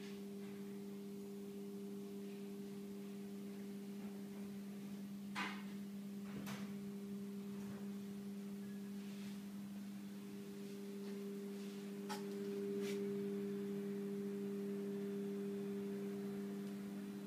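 Steady electrical hum made of a few even tones, with a few faint clicks along the way.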